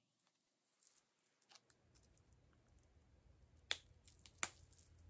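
Near silence, then two sharp clicks with a few fainter ticks between them, about three and a half seconds in, as a leather ruler bracelet is fastened around a wrist.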